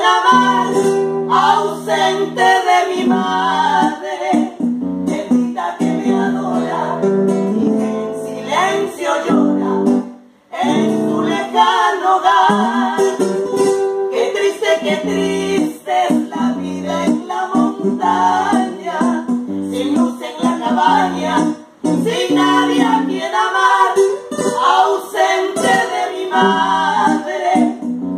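Two women singing a duet to an acoustic guitar accompaniment, with a short break in the sound about ten seconds in.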